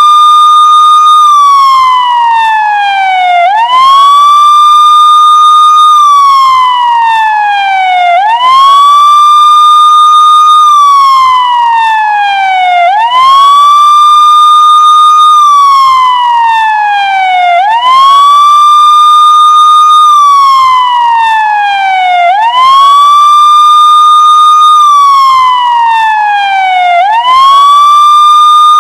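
Police car siren wailing: each cycle sweeps quickly up to a high note, holds it for about a second and a half, then falls slowly for about two seconds, repeating roughly every four and a half seconds.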